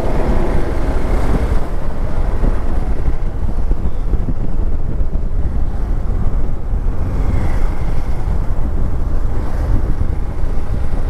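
Steady wind rushing and buffeting over the microphone of a moving Hero Xpulse 200 4V motorcycle, with engine and road noise underneath.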